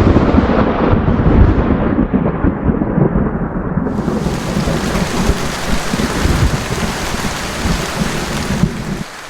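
Thunder rumbling over steady rain. About four seconds in, a brighter hiss of rain fills in above the rumble.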